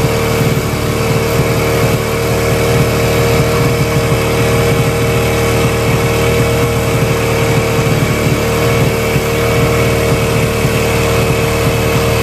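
Single-cylinder, air-cooled engine of a TVS Apache RTR 180 motorcycle idling steadily while its carburettor air screw is being adjusted. There is no tappet clatter, the valve clearance having just been set.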